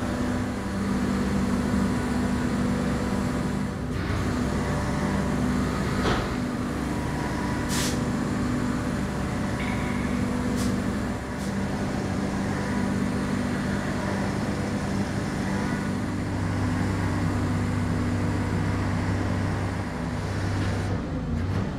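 Heavy equipment's engine running steadily, with a few sharp clicks and knocks, while a locomotive is let down a transporter's ramp on a cable.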